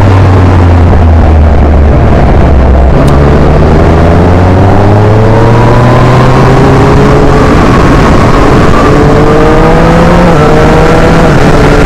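Yamaha MT-09's 847 cc three-cylinder engine through an Akrapovic exhaust, pulling under throttle with its pitch climbing steadily from about three seconds in. Near the end the pitch dips briefly and keeps rising, a quickshifter upshift. Heavy wind noise on the microphone throughout.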